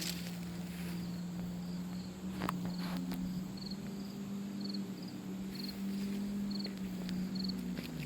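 Crickets chirping: short, high, pulsed chirps about twice a second, over a steady low hum and a couple of faint knocks.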